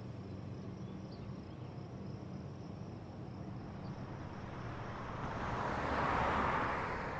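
Outdoor ambience of insects chirping faintly and steadily over a low hum, with a rushing noise that swells and fades about five to seven seconds in, as a vehicle passes.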